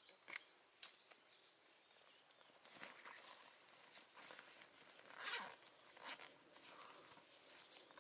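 Faint rustling and scraping from hands handling and cleaning a freshly picked mushroom, with a few small clicks in the first second.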